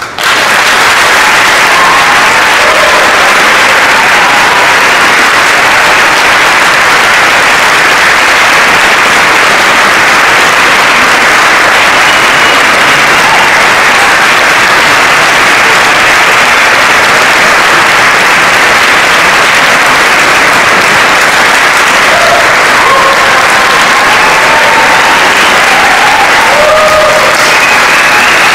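Audience applause that breaks out all at once and stays full and steady, with a few short calls from the crowd in the later part.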